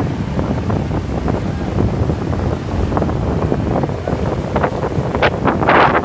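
Wind buffeting the microphone, with breaking surf and the diesel engine of a wheeled walking excavator running as it drives past. The buffeting gets stronger near the end.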